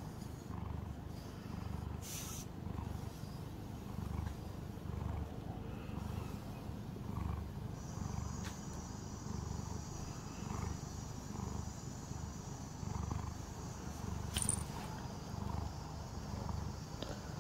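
Domestic calico cat purring close to the microphone, a low rumble that swells and eases about once a second with its breathing. A short click sounds about two seconds in and another, louder one near the end.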